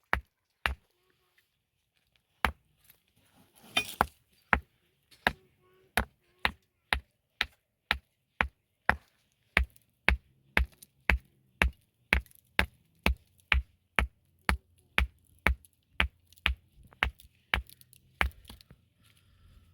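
A steady series of sharp chopping strikes, about two a second. There are two at the very start, then a pause, then an even run from a couple of seconds in until near the end.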